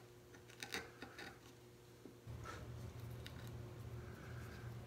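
Hand carving a wood block for a woodcut print: faint short scrapes and clicks of a knife and carving tool cutting into the wood, a cluster about a second in and a few more near three seconds. A low steady hum sets in about two seconds in.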